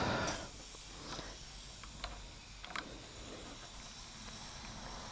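A heavy, strained breath right at the start, then faint clicks and scrapes of a Phillips screwdriver working at a very tight screw.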